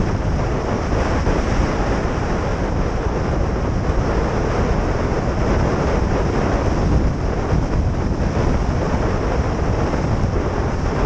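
Steady wind noise on a cyclist's camera microphone while riding fast downhill.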